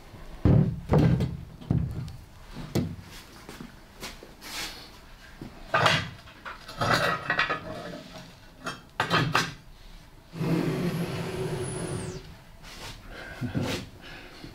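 Large glazed ceramic sculpture being handled and shifted on a worktable: a series of knocks and thumps of ceramic against the table, with a longer scraping noise of nearly two seconds about ten seconds in.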